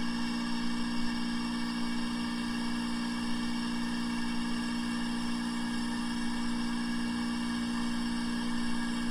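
Vacuum pump motor running with a steady, even hum and a constant low drone, left on after the vacuum has been broken on the investment.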